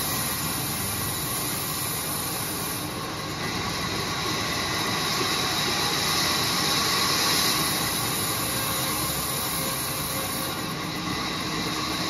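Large sawmill band saw running with its blade cutting through a mango wood log: a steady, high-pitched hiss of the blade in the wood over the hum of the machine.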